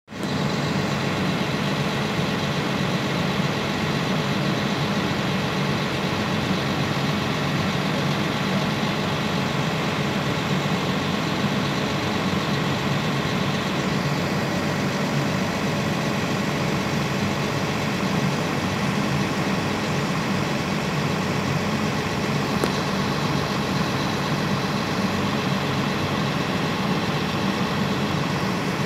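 An engine idling steadily with a constant low hum that holds the same pitch throughout.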